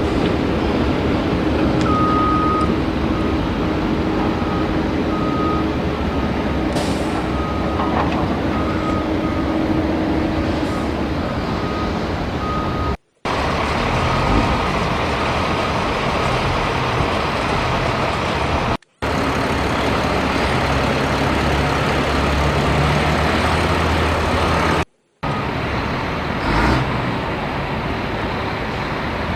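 RC excavator running with a steady engine-like noise, and a short repeating beep like a reversing alarm over roughly the first ten seconds. The sound drops out briefly three times.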